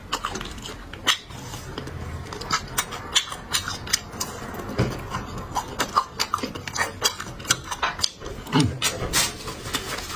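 Close-up eating sounds: a rapid, irregular series of wet clicks and crunches from chewing food.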